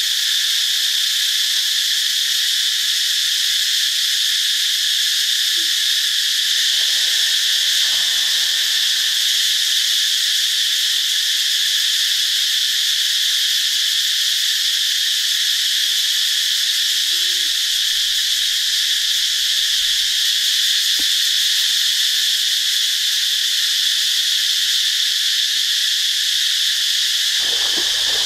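Loud, steady chorus of insects: a dense, high-pitched, unbroken buzzing hum.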